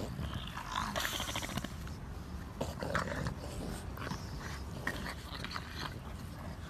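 An English bulldog puppy and another dog play-wrestling, making short, irregular dog noises throughout.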